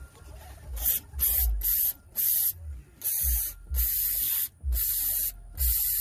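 Aerosol cleaner can hissing in about eight separate sprays, the first few short and the later ones longer, as grime is sprayed off around an oily engine cam sensor and its connector.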